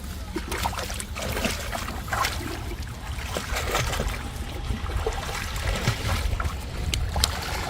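Water trickling and splashing with scattered small knocks, over a steady low rumble.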